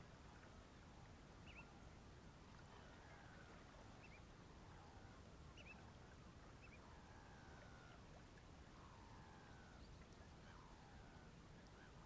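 Faint distant bird calls, a few short high double chirps and several fainter drawn-out lower calls, over a low steady background rumble.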